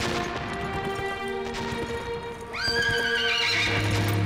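A horse whinnies once, a little past halfway in: a call about a second long that rises sharply and then levels off and fades. Background music with held notes plays throughout.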